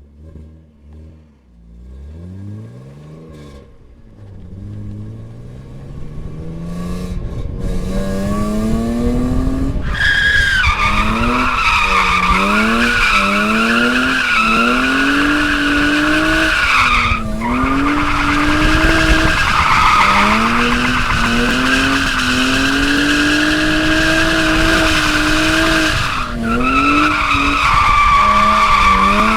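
A car engine blipping and revving, then accelerating, and about ten seconds in the tyres break into a long, steady squeal as the car drifts. Under the squeal the engine pitch climbs and drops again and again, with two brief dips.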